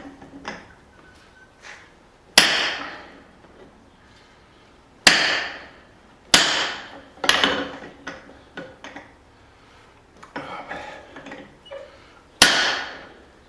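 Hand hammer blows on steel at the anvil, driving a punch into a hot steel hammer-head blank to open the eye. There are about five heavy, spaced strikes, each ringing out briefly, and a few lighter taps between them.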